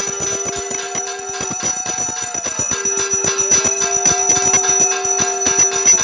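Puja bell rung rapidly and continuously, over a low held note that breaks off for about a second in the middle and then resumes.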